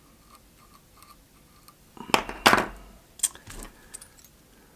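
Small metal hackle pliers set down with a clatter: a quick cluster of sharp metallic clicks about two seconds in, then two lighter clicks about a second later.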